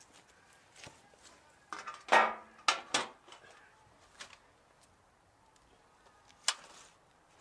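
Thin carbon-steel oven trays clattering and ringing as they are picked up and knocked together, loudest about two seconds in. A single sharp metal clank follows near the end.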